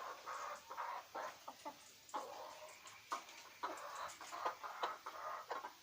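Chicken clucking, with quick sharp taps of a chicken pecking at its feed, eating fairly normally again while it recovers from illness.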